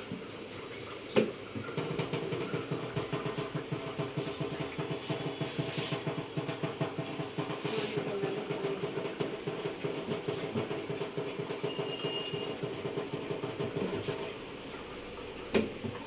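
RO water purifier's booster pump running with a steady, fast-pulsing hum. A sharp click comes about a second in just before it starts; the hum stops about two seconds before the end, and another click follows.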